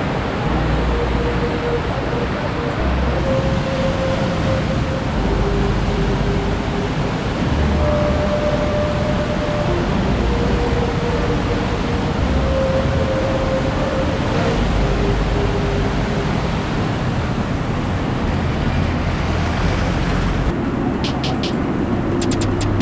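The flooded Kali Gandaki river rushing past in a steady, loud roar of churning muddy water.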